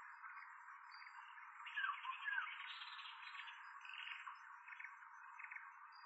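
Dense chorus of forest birds calling over one another, with two loud sliding call notes from a nearer bird about two seconds in.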